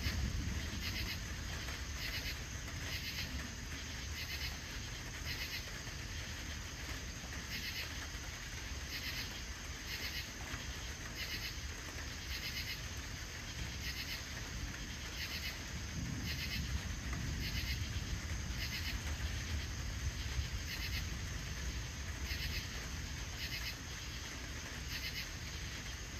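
Crickets chirping in a steady rhythm of about one chirp a second, over a low rumble that swells about two-thirds of the way through, as distant thunder.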